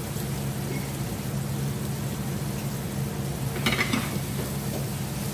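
Onion and garlic sizzling in hot oil in a pan on a gas stove, over a steady low hum. A brief clatter of a cooking utensil about four seconds in.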